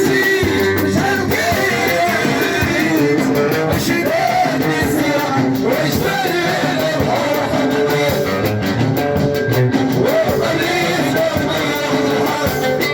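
Moroccan chaabi song with a singer and instruments, over frequent percussion strikes.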